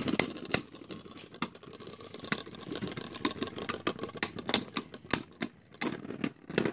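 Battle spinning tops clashing and clattering against each other as they spin: a run of irregular sharp clicks and knocks.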